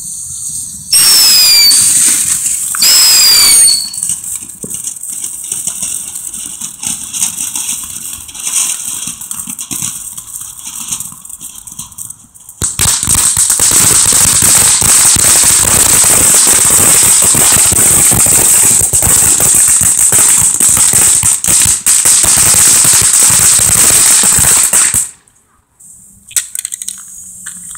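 Consumer ground firework, the 'Cuckoo', going off: two loud whistles falling in pitch in the first few seconds, then quieter crackling, then about twelve seconds of loud, steady hissing and crackling that cuts off suddenly.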